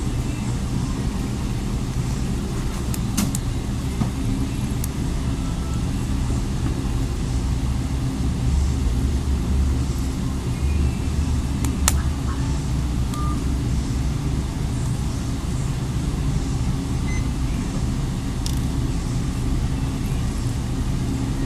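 Steady low rumble of background noise, with a few faint sharp clicks as a plastic pick is worked under a phone's circuit board to lift it.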